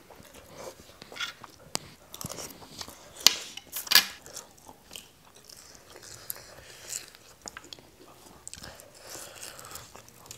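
Close-miked chewing and biting of a spicy noodle salad with shrimp: wet mouth sounds with irregular sharp crunches, the loudest a little after three and about four seconds in.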